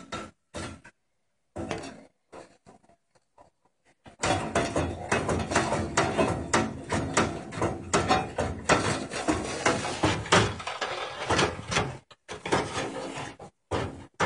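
Window blind slats clicking and rattling as a cat paws them back and forth: a few short rattles, then dense, rapid clicking from about four seconds in, breaking into short bursts near the end.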